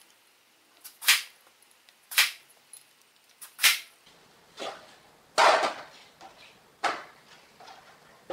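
Chinese cleaver chopping through a large eggplant onto a plastic cutting board: three sharp cuts about a second apart. Then lighter knocks and a louder clatter about five and a half seconds in, as the slices are handled on the counter.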